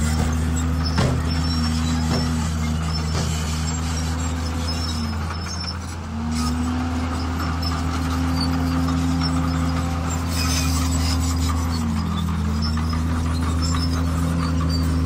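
Heavy diesel engine of earthmoving machinery working under load, its pitch dipping briefly about six seconds in and again near twelve seconds, with scattered light knocks over it.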